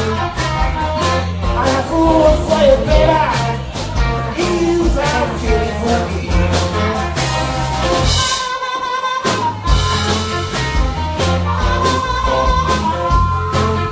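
Live blues band playing an instrumental passage: a harmonica solo with held, bending notes over guitar and drums. A little past the middle, the drums and low end stop for about a second, then the band comes back in.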